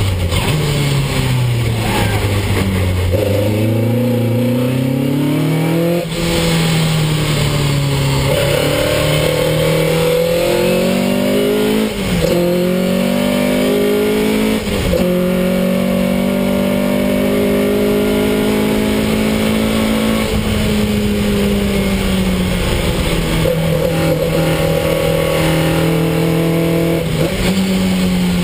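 Ford Anglia special saloon race car's engine heard from inside the cabin at racing speed. The revs drop for the first few seconds, then climb with sharp breaks in pitch at gear changes about six, twelve and fifteen seconds in. The engine then holds high revs and eases off again near the end.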